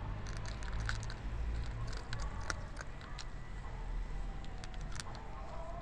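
Stray cats crunching dry cat kibble, a string of small irregular crunching clicks over a low background rumble.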